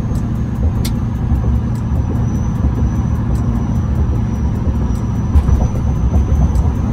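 In-cab sound of an LLY Duramax 6.6-litre turbodiesel V8 pickup cruising at highway speed: a steady, loud low rumble of road, tyres and engine, with a faint steady high whine above it.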